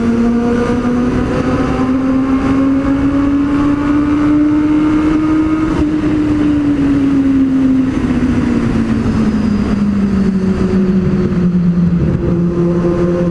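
Kawasaki Z750's inline-four engine running through a Two Brothers aftermarket exhaust while riding in a tunnel. Its note climbs gradually for about six seconds, then drops over the next few seconds and holds steady near the end.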